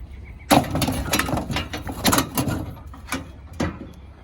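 Metal scrap rattling and clanking as it is handled, a dense run of knocks that starts about half a second in and dies away after about three seconds.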